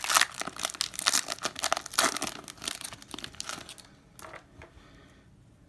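Hockey card pack wrapper crinkling and tearing as it is opened by hand: dense crackling for about three and a half seconds, then dying down to a few faint rustles.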